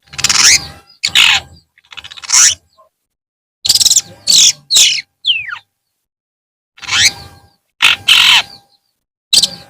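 Long-tailed shrike (cendet) giving about a dozen loud, harsh, rasping calls, some sweeping downward, in short bursts with dead-silent gaps between them.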